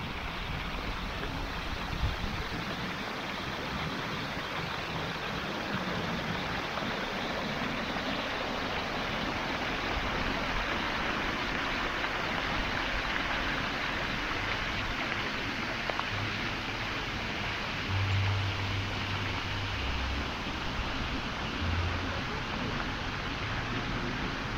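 Steady rushing outdoor noise, even throughout, with a few short low bumps in the second half.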